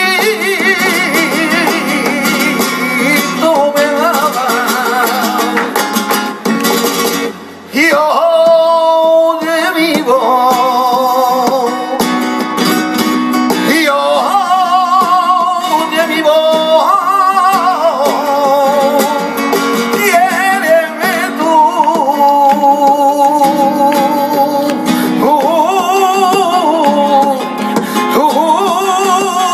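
Live flamenco colombianas: a man sings in long, ornamented lines with a wavering vibrato, accompanied by a strummed and plucked flamenco guitar. The music dips briefly a quarter of the way in.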